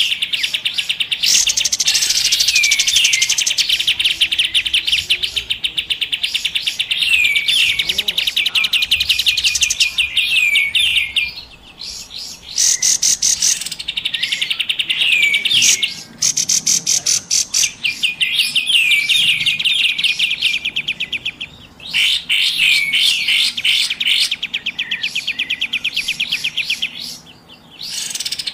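Kapas tembak birds calling in a busy lure recording: rapid, dense chattering trills with short hooked whistled notes, in long bouts broken by brief pauses.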